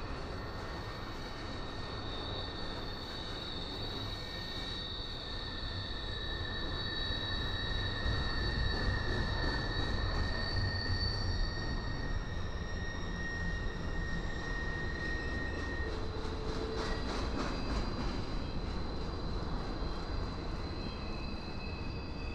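Double-stack intermodal well cars rolling past on steel rails: a steady rumble of wheels on track, with thin, high wheel squeal held for many seconds at a time. There is a brief clatter about three-quarters of the way through.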